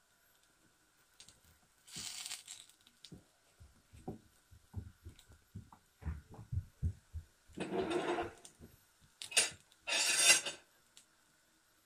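Wooden spatula working a gram-flour roti in a frying pan: a run of soft low taps and knocks as it presses the bread down, then a few longer, louder scrapes of the spatula across the pan, the last two the loudest.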